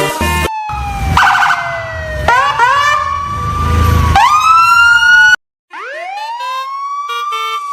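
Wailing siren, its pitch sliding slowly down and then sweeping quickly back up, several times, with music playing under it. The sound drops out completely for a moment about five and a half seconds in.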